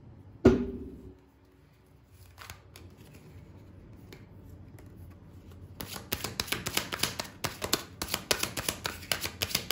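A sharp knock about half a second in, then, from about six seconds on, a tarot deck being shuffled by hand, the cards clicking rapidly against each other.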